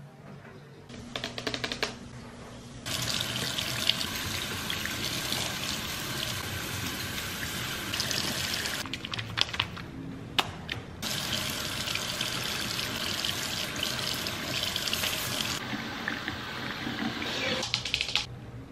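Tap water running into a stainless steel kitchen sink as a steady rush of water, with hands working in the stream. The flow drops away for about two seconds in the middle, with a few small knocks, then comes back.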